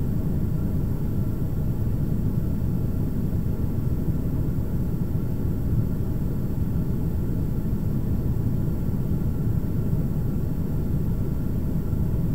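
Steady low rumbling noise with faint steady tones above it, from a 4-inch FPV quadcopter in flight and wind.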